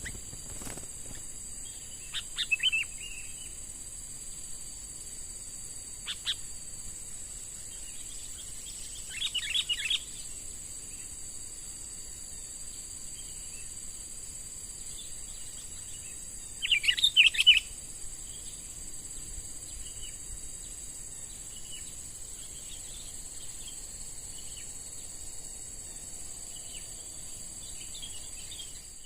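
A young sooty-headed bulbul giving short bursts of chirping calls, four times in the first two thirds with the loudest just past the middle, then fainter scattered chirps. A steady high-pitched whine sits underneath.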